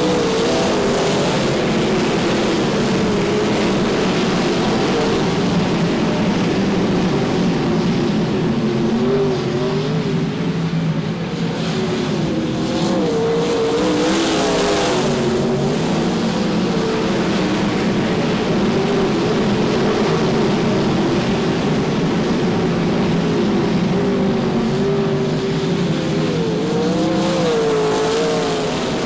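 Sprintcar V8 engines running on the dirt track, their pitch wavering up and down with the throttle.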